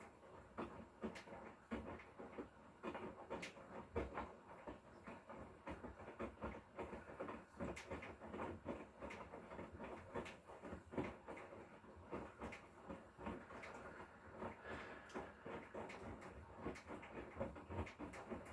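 Hotpoint Core washing machine drum turning a wash load with its inverter motor: irregular soft knocks and swishing as the wet laundry tumbles.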